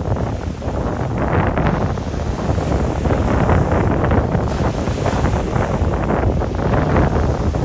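Wind buffeting the microphone: a loud, steady low rumble with irregular gusts.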